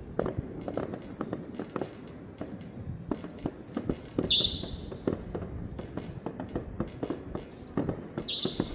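Fireworks going off in quick succession: many sharp bangs and pops, with two short hissing bursts, one about four seconds in and one near the end.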